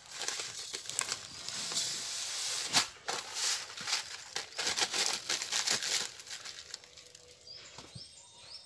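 Plastic packet of granulated sugar crinkling as the sugar is poured into a dry metal kadai to start a sugar syrup: a rustling hiss with many small crackles for about six seconds, then only a few faint clicks.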